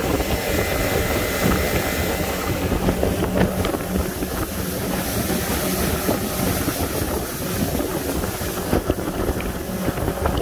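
A pontoon boat running flat out through choppy water: the steady drone of its 90 hp Suzuki outboard at full throttle, mixed with water rushing under the hull and wind buffeting the microphone.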